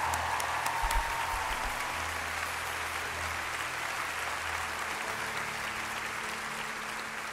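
Large crowd applauding steadily, a sustained ovation of many hands clapping at once.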